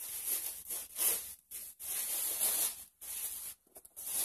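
Wrapping paper and tissue paper rustling and crinkling in several bursts with short pauses, as a gift-wrapped parcel is torn open and unpacked.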